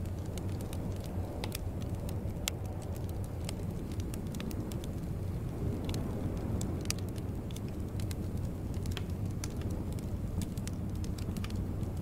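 Log fire crackling in a fireplace: irregular sharp pops and snaps over a steady low rumble of burning.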